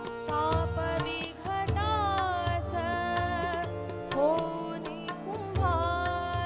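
Indian devotional music: tabla playing a steady pattern of deep bass strokes under a sliding, ornamented melody line; the bass drum drops out briefly a little past the middle.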